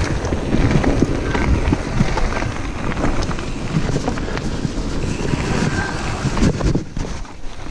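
Wind buffeting the microphone of a bike-mounted GoPro as a Santa Cruz Heckler mountain bike rolls fast down a gravel trail. The tyres crunch over loose gravel and the chain and frame keep up a constant rattle of small clicks and knocks.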